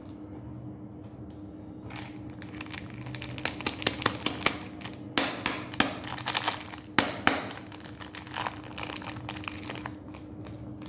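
Crinkly plastic lollipop wrappers being handled, a dense run of crackles and sharp clicks starting about two seconds in, loudest in the middle and easing off near the end.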